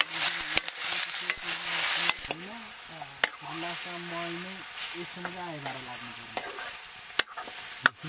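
Meat sizzling as it is fried and stirred in a pan of hot oil: a loud hiss for the first two seconds, then a quieter sizzle with scattered scraping clicks from the stirring.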